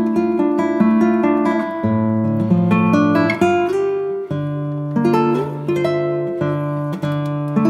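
Instrumental background music of plucked and strummed acoustic guitar over a steady bass line.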